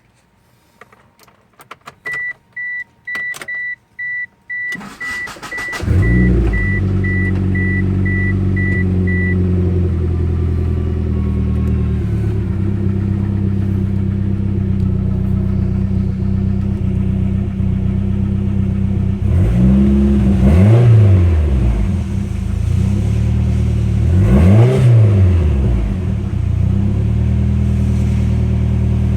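A car's warning chime beeping while a few clicks sound, then the engine cranks briefly and starts about six seconds in. It settles into a steady idle and is revved up and let fall back twice near the end. The engine carries the ticking noise that the owner says is not lifter tick.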